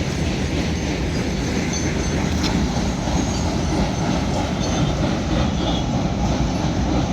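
Freight train wagons rolling past at a steady pace: a continuous rumble and clatter of steel wheels on the rails, with a few faint short wheel squeals.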